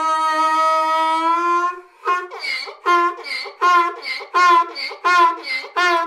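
Donkey braying: one long held note for about two seconds, then a rapid run of alternating hee-haw notes, about three a second.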